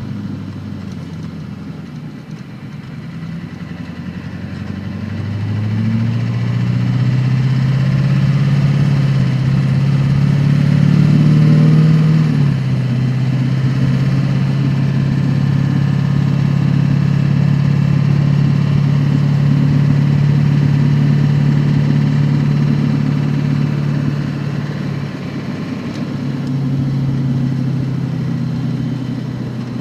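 A car accelerating, with a loud low drone that climbs in pitch for several seconds, steps down about halfway through as if on a gear change, then holds steady before easing lower near the end. This is the unwanted noise the car makes under acceleration.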